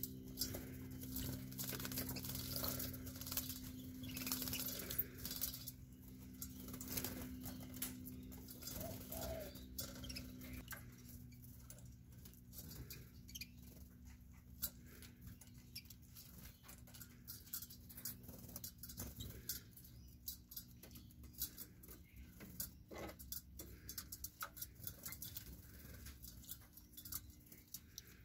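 Canaries bathing in a shallow metal water bowl: irregular bursts of splashing and wing fluttering in the water, busiest in the first ten seconds or so. A steady low hum sits underneath.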